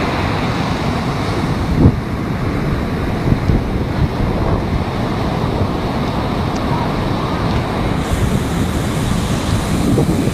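Rough sea surf breaking and rushing onto the beach, with wind buffeting the microphone as a low rumble. A single brief thump comes about two seconds in.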